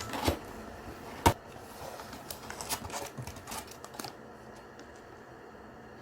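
Scattered sharp clicks and knocks, the loudest a single knock about a second in and a quick run of lighter clicks between two and four seconds, then only quiet room tone.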